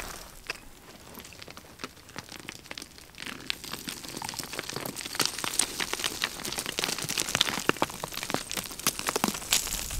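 Loose scree and rock chips clicking and crunching under a hiker's boots on a steep talus slope, in quick irregular ticks that grow denser and louder over the second half.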